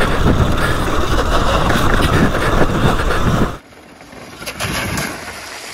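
Wind buffeting the helmet camera's microphone and tyres rumbling over rock as a Sur Ron Light Bee X electric dirt bike is ridden fast. About three and a half seconds in, the sound cuts off suddenly to a much quieter, distant bike crossing shallow water.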